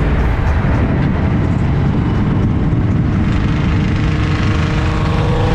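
Cars driving along at a cruise: steady engine and road noise with a heavy low rumble, heard from a moving car.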